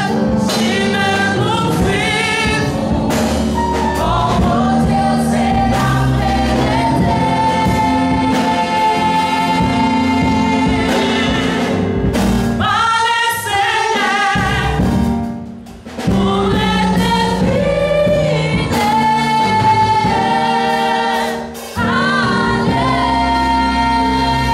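Women singing gospel lead vocals into handheld microphones in harmony, with live band accompaniment of bass, drums and keyboard underneath. The music drops out for about a second roughly two-thirds of the way through, then comes back in.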